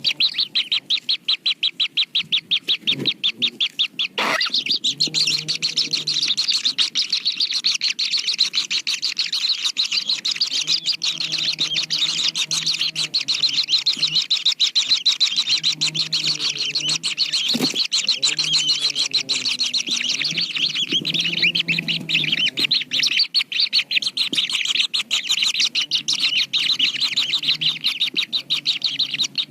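Kingfisher chicks chirping rapidly and without a break, a dense, high, insistent chatter.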